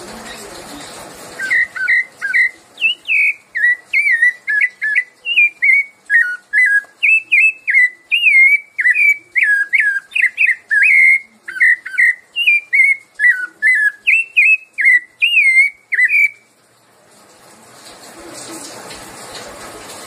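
Rufous-bellied thrush (sabiá-laranjeira) singing its "piedade Senhor" song: a fast, unbroken run of short whistled notes, each swooping up or down. It starts about a second in and stops abruptly with a few seconds left, with a steady hiss before and after.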